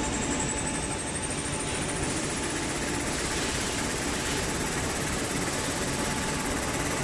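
Maxi jumbo roll tissue rewinder and cutter line running: a steady mechanical din with a thin high whine that rises in pitch over the first couple of seconds, then holds.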